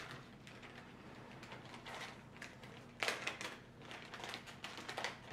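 Packaging of a fly-tying kit crinkling and rustling as it is opened and handled: irregular crackles, loudest in a cluster about three seconds in.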